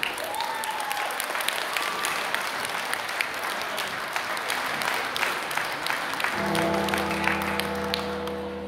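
Audience applauding, many hands clapping together. About six and a half seconds in, music with long held chords comes in under the clapping.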